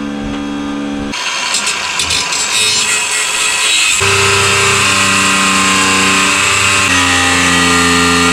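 Background music: sustained chords that change every few seconds, with a bright crash-like wash about a second in.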